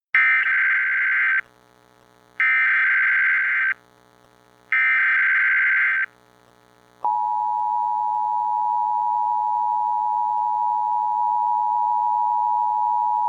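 Emergency Alert System broadcast: the digital SAME header sent three times as harsh, warbling data bursts about a second and a half long with short gaps, then about seven seconds in the steady two-tone EAS attention signal starts and holds. It announces a Required Monthly Test.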